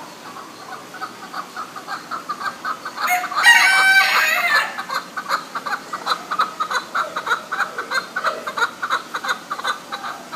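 Chickens clucking over and over, with a rooster crowing once, loud and lasting about a second and a half, about three seconds in.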